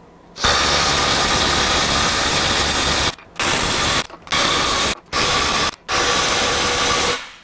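Ryobi One+ HP 18-volt compact 3/8-inch cordless impact wrench hammering nuts tight in five bursts, with short breaks between as it moves from nut to nut.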